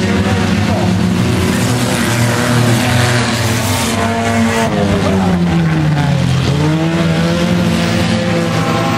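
Several compact-sedan race cars running hard around a dirt oval, their engine notes overlapping. A little past the middle one car's pitch falls and then rises again as it comes off the throttle and back on.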